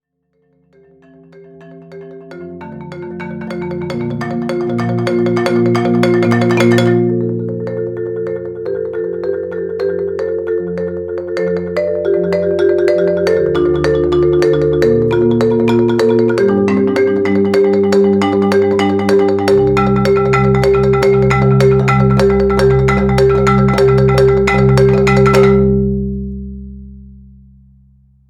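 Instrumental music: a melody over sustained low notes with a quick, regular ticking beat. It fades in over the first few seconds, drops back briefly about seven seconds in, and fades out near the end.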